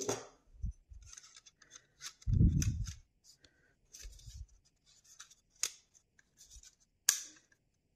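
Plastic GraviTrax PRO height-tile parts being handled and pressed together: scraping and rubbing, with a couple of sharp clicks in the second half as the side walls are fitted. A dull thump sounds about two seconds in.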